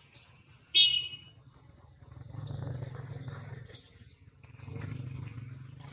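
Infant macaque giving one short, high-pitched squeak about a second in, followed by two stretches of low rumbling.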